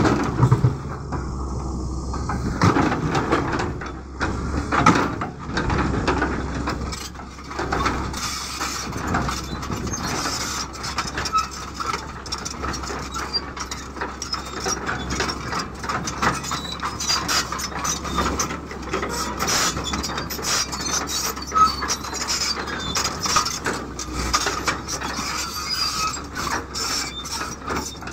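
Caterpillar tracked excavator's diesel engine running steadily under load, with many irregular knocks and clatters as rocks scrape and tumble against the steel bucket while it digs and sorts stone.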